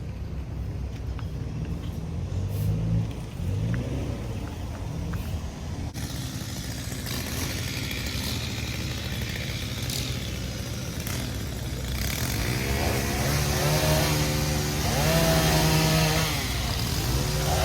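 A small engine running steadily, then revved up and down several times in the last few seconds.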